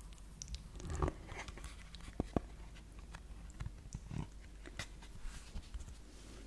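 Small cardboard board book handled close to the microphone: it is closed and held by its cover, giving a scattering of soft clicks, taps and light scrapes of fingers on the card.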